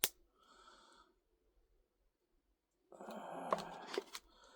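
Plastic food packaging being handled and pulled at to tear it open. A sharp click at the start, then a rough stretch of crinkling with a few clicks about three seconds in.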